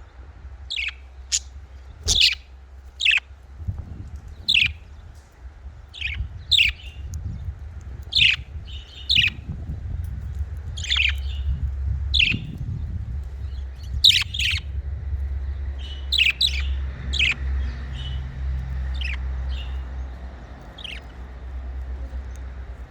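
Budgerigars giving a run of short, sharp chirps, one every second or so, over a steady low rumble.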